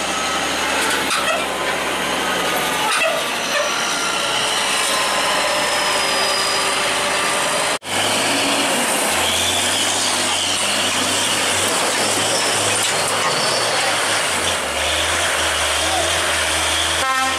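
Heavy container truck's diesel engine running with a steady low hum, together with the noise of the rig moving over a rough dirt road. The sound breaks off sharply about eight seconds in and resumes.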